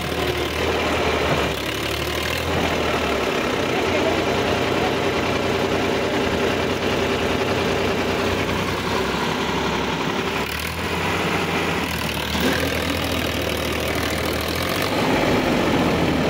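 Sonalika tractor's diesel engine running steadily, with its note changing a few times and getting louder near the end, as the driver works the rear wheel out of a hole it has dropped into.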